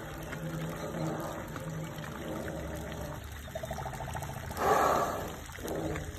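Water trickling and sloshing around two Asian elephants bathing in a pool, with a low steady hum under it early on and a short, louder whoosh of noise about four and a half seconds in.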